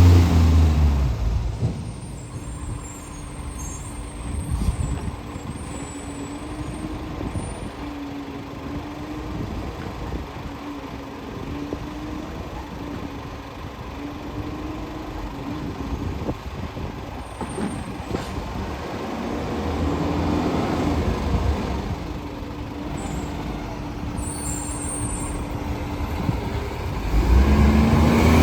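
ACCO garbage truck's engine running with a loud exhaust note from an exhaust leak. It is loud at first, fades within a couple of seconds, holds at a lower steady level, and grows loud again near the end.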